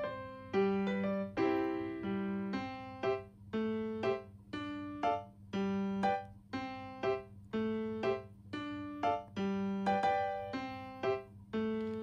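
Background music: a light, bouncy tune of short struck notes that each die away, about two a second, over a steady low tone.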